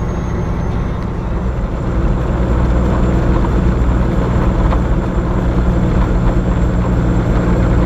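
Semi truck's diesel engine running steadily at highway speed, with road and wind noise heard from inside the cab. The sound gets louder about two seconds in.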